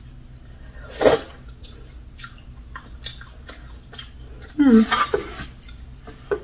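A person eating soft food with their hands, heard as wet chewing and lip-smacking clicks. There is a short loud mouth sound about a second in and a brief hummed voice sound a little past halfway.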